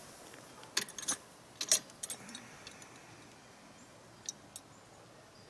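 Metal gate-latch hardware clinking and clicking as it is handled and lined up for mounting: a quick run of sharp clinks in the first two seconds, the loudest near the middle of it, then two light clicks about four seconds in.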